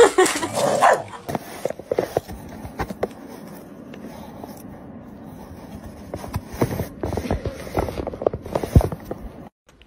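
A brief voice-like sound at the very start, then a paper bag crinkling and rustling in short, scattered crackles as a cat moves inside it, busiest near the end.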